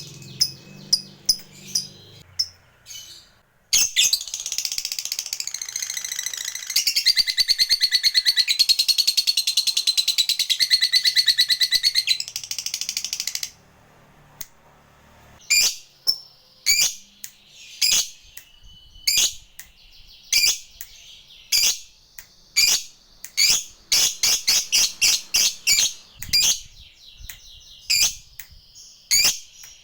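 Lovebird calling. A few sharp chirps, then a long, fast chattering trill (the ngekek) lasting about ten seconds and shifting up and down in pitch. Then a string of single shrill calls, some coming in quick runs.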